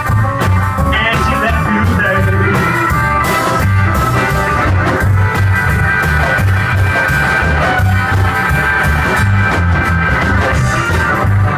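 Rockabilly band playing live: upright bass, drum kit, acoustic rhythm guitar and electric guitar in an instrumental passage without singing, loud and steady, with a strong walking bass line.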